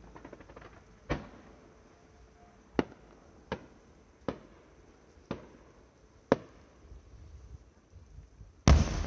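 Distant fireworks going off: six sharp bangs over about five seconds, then a much louder boom near the end.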